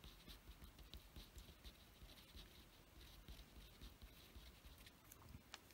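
Pen writing on a paper worksheet, a faint, irregular scratching as a word is handwritten.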